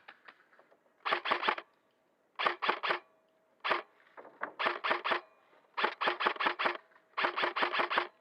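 Custom VFC Avalon M4 airsoft electric gun (with an SHS high-torque motor) firing in short bursts of one to six shots: about six bursts, each a quick run of sharp snaps.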